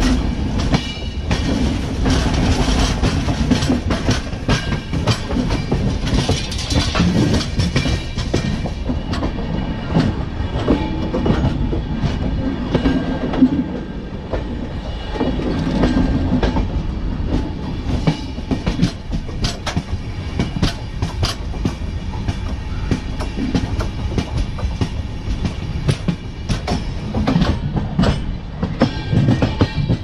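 Steel train wheels on a bogie rolling along the rail close up: a steady heavy rumble with frequent irregular clicks and knocks from the wheels passing over the track.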